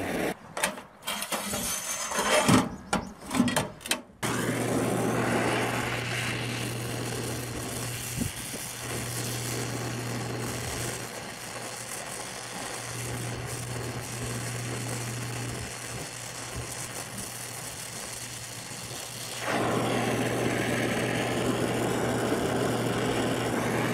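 Oxy-acetylene torch flame hissing steadily while it melts a puddle to tack-weld two thin steel pieces together, growing louder about twenty seconds in. A few short irregular knocks come first.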